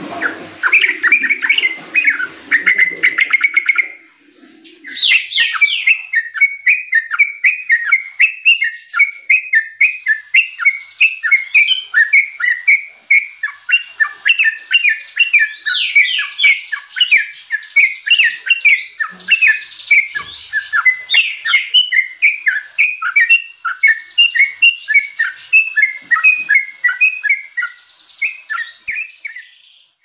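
Yellow-vented bulbul singing a fast chattering song of short notes, several a second, with occasional higher rising notes and a brief pause about four seconds in.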